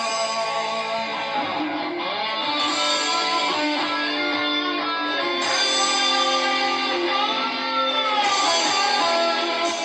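Guitar music: sustained, overlapping guitar notes and chords played steadily, with a few notes bending in pitch.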